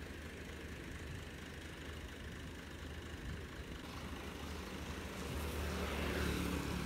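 Diesel farm tractor engine running steadily at idle, a low even hum that grows louder over the last couple of seconds.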